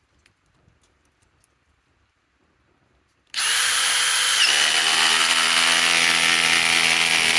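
DeWalt DCF870 hydraulic impact driver driving a fastener: it starts up loud about three seconds in, and about a second later its sound settles into a steady, lower buzzing hum as it comes under load.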